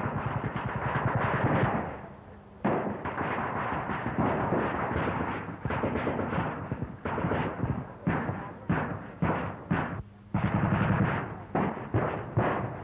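Machine-gun and rifle fire in bursts, on an old newsreel soundtrack with a narrow, dull range. A continuous stretch of rapid firing runs for about two seconds, then comes a short lull, then repeated bursts of varying length that grow shorter and choppier toward the end.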